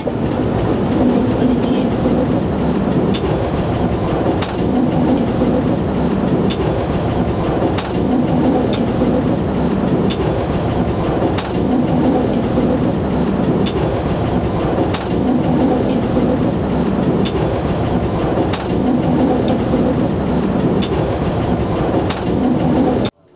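Cab of a Z 5300 electric multiple unit running at speed: a steady rumble of wheels on rail, with a sharp clack every second or two as the wheels pass over rail joints. It cuts off suddenly just before the end.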